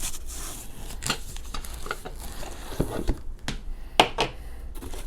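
Scattered clicks, knocks and light metallic clatter from a metal cash box being handled while it is unpacked.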